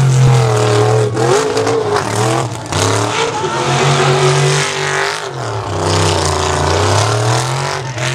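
Lifted mud truck's engine revving hard, loud, its pitch swinging up and down several times as the driver works the throttle through the mud.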